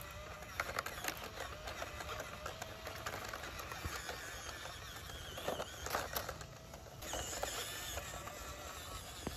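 The electric motor and gears of a 1/18-scale RC Toyota Land Cruiser whine, the pitch wavering as the throttle changes, as the truck crawls over dry leaves, dirt and twigs. Its tyres crunch and click on the leaf litter, loudest about half a second in and again around six seconds in.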